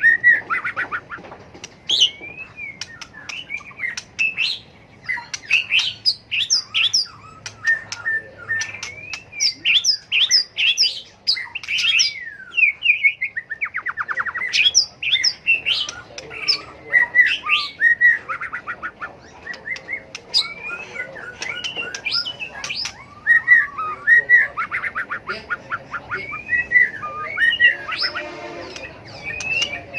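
White-rumped shama in full competitive song: a continuous, varied stream of loud whistled phrases, sharp chips and rapid trills.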